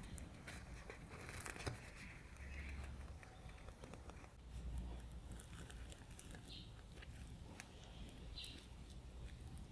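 A soft baked potato bread roll with a cheese filling being torn apart by hand: faint crackling of the crust and soft tearing of the crumb, with scattered small clicks.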